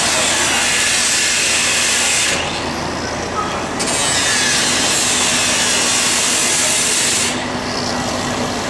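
Angle grinder cutting metal, throwing sparks, in two long passes: the first runs about two and a half seconds, then after a pause of about a second and a half it cuts again for about three and a half seconds.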